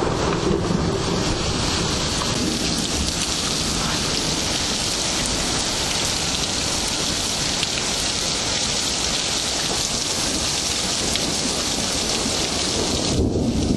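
Thunderstorm recording: heavy, steady rain making a dense hiss, with a low thunder rumble fading at the start and another coming in near the end.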